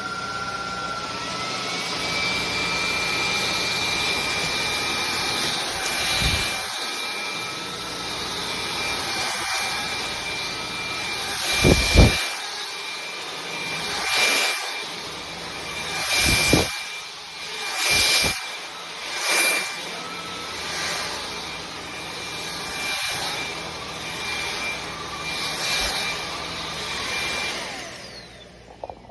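INTETURE BP20 cordless stick vacuum switched on, its motor spinning up with a rising whine and settling into a steady high-pitched run. The sound swells louder several times, then the motor winds down near the end.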